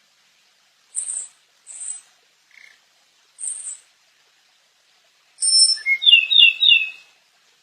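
Ryukyu robin singing: a few short, high separate notes about a second apart, then a longer, louder phrase of rapid warbled notes in the second half.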